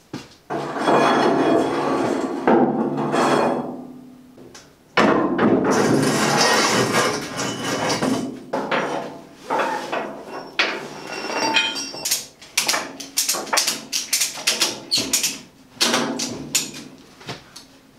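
A 5-ton ratchet strap is being fitted and tightened to hold a chassis down. There are two long noisy stretches, then a quick, irregular run of sharp clicks and knocks in the last third.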